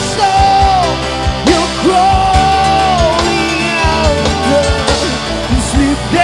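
A rock band playing, with drums and a voice singing long held, bending notes.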